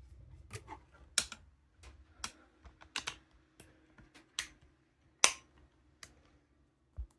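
A series of irregular sharp clicks and taps, about a dozen, the loudest about a second in and again about five seconds in, over a faint low hum that fades out early.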